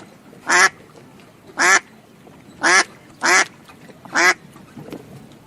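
Duck quacking: five short quacks, the last about a second before the end.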